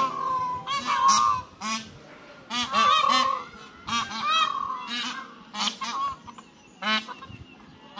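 A flock of Indian peafowl calling: a dozen or so short, loud calls, often in quick runs of two or three, with some birds calling over one another.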